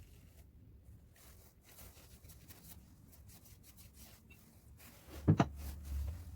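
Faint, irregular rubbing and scraping of hand work on a small metal tool, then a sharp knock with a brief rattle about five seconds in.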